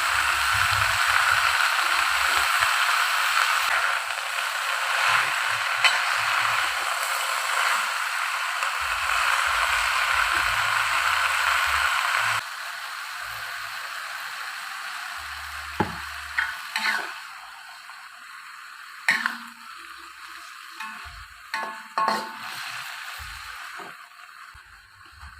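Food sizzling in hot oil in a frying pan, with a spatula stirring against the pan. The sizzle drops sharply about halfway through and fades away, and a few sharp clinks of the utensil on the pan follow.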